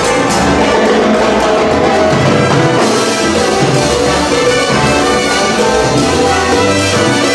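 Live salsa band playing: a horn section of trumpets and trombones over timbales and conga percussion.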